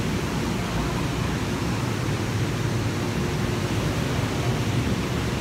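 Rushing whitewater of the river below Maria Cristina Falls: a steady, unbroken roar of churning water, heaviest in the low end.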